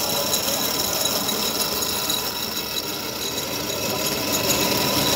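A seed-processing machine running, with a steady mechanical rattle as red-coated grain is fed through it and pours out of its discharge pipes.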